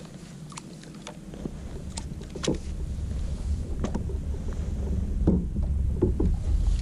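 Scattered knocks and clicks of gear being handled aboard a plastic fishing kayak as a landing net is stowed, over a low rumble that grows louder after about two seconds.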